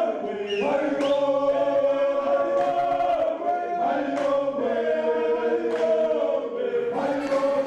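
A choir singing long, held notes together, moving to a new chord every second or so.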